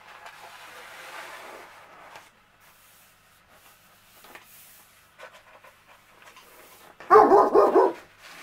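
Diamond-painting canvas and its paper backing rustling as it is unrolled and smoothed out by hand on a cutting mat. About seven seconds in, a dog barks loudly for about a second.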